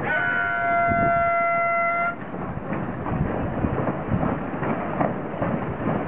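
A horn gives one steady blast of about two seconds that cuts off sharply, followed by a steady rushing of wind and water noise.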